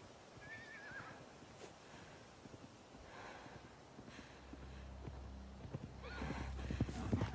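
Faint horse sounds: a horse whinnying with a wavering call about half a second in, then hoofbeats that grow louder near the end. A low steady drone comes in about halfway and swells.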